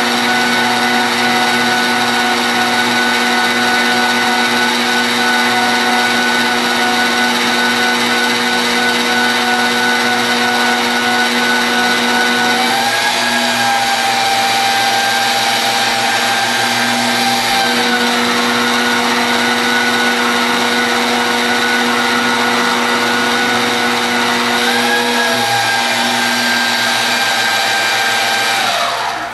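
Magnetic drill's electric motor turning an annular cutter through a tractor bucket's steel lip, a steady whine. Its pitch rises twice for a few seconds, dropping back in between, and the motor winds down at the very end as it is switched off.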